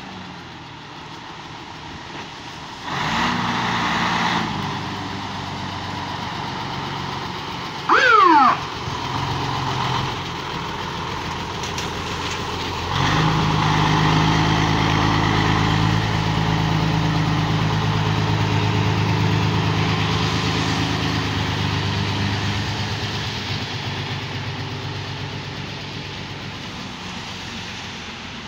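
Fire truck engine running as the turntable-ladder truck pulls out and drives past, louder as it passes about 13 seconds in and fading as it drives away. About eight seconds in comes a short, loud siren blip falling in pitch.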